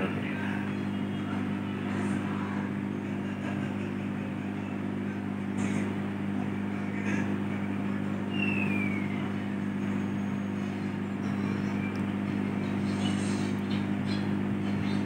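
Kenstar microwave oven running in microwave mode: a steady electrical hum from its transformer and cooling fan.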